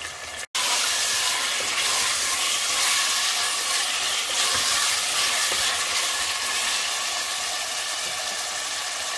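Cubed chicken breast frying in hot olive oil in a pot: a steady, loud sizzle. It cuts out for an instant about half a second in, then runs on.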